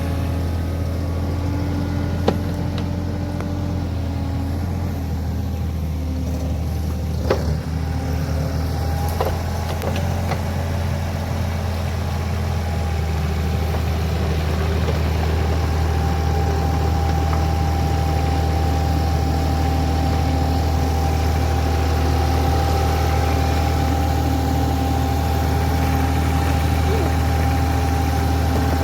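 Caterpillar 303 mini excavator's diesel engine running steadily while digging, with a few sharp knocks in the first ten seconds. A steady high whine joins about halfway through as the engine gets a little louder.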